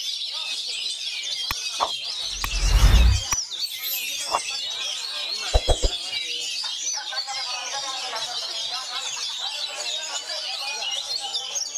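Oriental magpie-robin (kacer) singing a fast, continuous warbling song amid the overlapping chirps of other caged songbirds. A loud burst of noise about two and a half seconds in lasts roughly a second, and a few sharp knocks are scattered through the first half.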